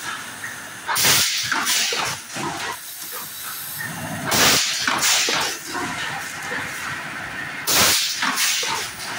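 Sharp bursts of hissing air from a working heating machine with a red-hot chamber, three of them about three and a half seconds apart, with small clanks and steady machine noise between.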